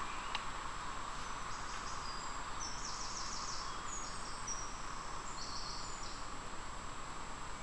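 Small songbird singing several high-pitched trills of rapid repeated notes that step between pitches, over a steady outdoor hiss with a faint constant high tone.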